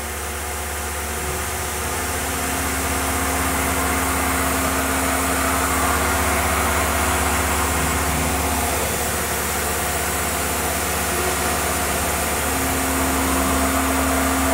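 Tormach PCNC 1100 CNC mill running, its spindle driving a small end mill through brass parts: a steady machine hum with a steady tone that drops out for a few seconds in the middle and comes back near the end.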